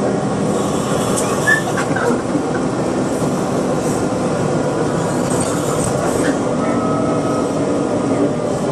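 Steady cabin noise of a moving city bus: engine hum and road rumble, with a few faint ticks and rattles.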